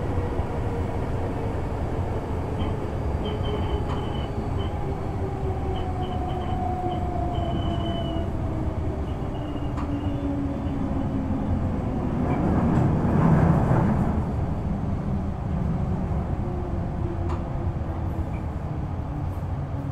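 Kintetsu 6020 series electric train running, heard from aboard: a steady rumble of wheels on rail with a motor whine slowly falling in pitch, and a louder swell of rumble about twelve to fourteen seconds in.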